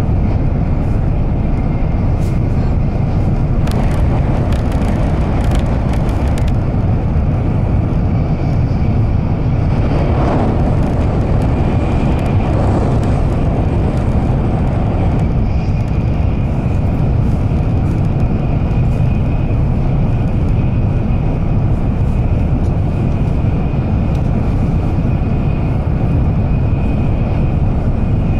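Cabin noise of an N700-series Shinkansen running at speed: a steady low rumble with a faint high whine, and a few faint clicks about four to six seconds in.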